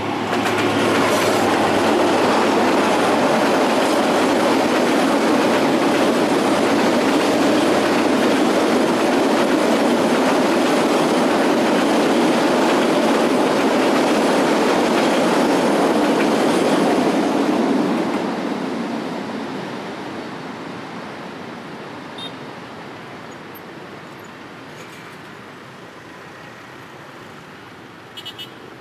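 Diesel-hauled freight train passing close by: a loud, steady rumble of locomotive and freight wagons rolling over the rails, which fades away after about eighteen seconds as the last wagons go by.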